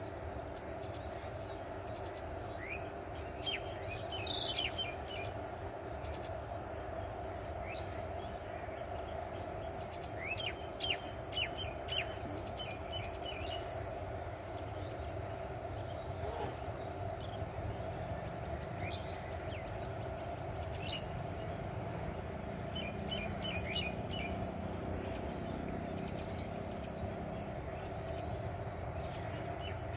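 Steady drone of insects with short bird chirps coming in three clusters, a few seconds in, around ten seconds in and again later on. In the last third a faint low rumble builds: the distant electric locomotive and its train drawing nearer.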